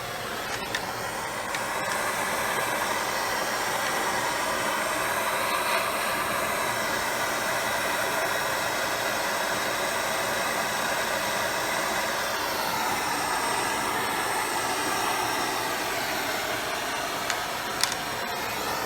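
Propane torch flame burning with a steady rushing hiss while it heats copper tubing joints for soldering. A couple of small sharp ticks come near the end.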